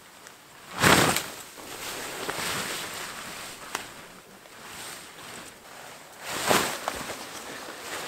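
Nylon tent being unpacked and shaken out: two brief whooshing rushes of fabric, about a second in and again near the end, with softer rustling between.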